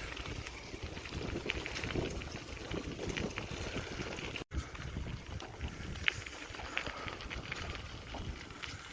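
Vintage Raleigh M50 mountain bike rolling along a trail: steady tyre noise full of small crunches and crackles, with wind rumble on the microphone. The sound cuts out for an instant about halfway through.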